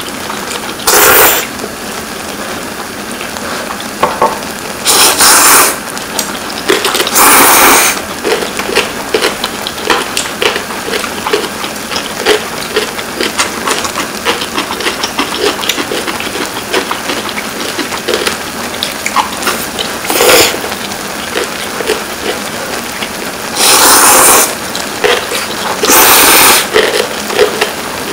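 Ramen noodles being slurped from bowls with chopsticks, about six loud slurps of roughly a second each. Small clicks and smacks of eating come between them.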